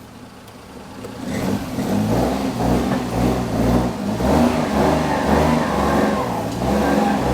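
Daihatsu Charade L251's engine revving as the car climbs onto ramps, the revs rising and falling while the clutch is slipped. The engine noise swells about a second in.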